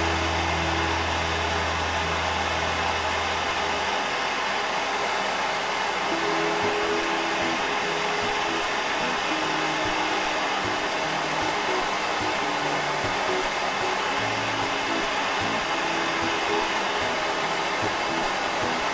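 Steady hiss of a propane lampwork bench burner's flame, set to a concentrated flame, with faint background music. A low hum stops about four seconds in.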